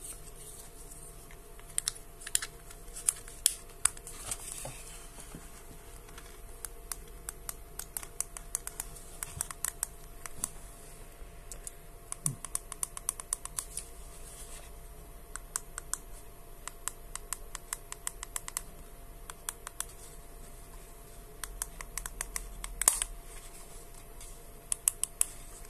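Buttons of a plastic infrared TV-box remote control clicking as they are pressed, in quick runs of presses like typing, with a louder click near the end. A faint steady tone hums underneath.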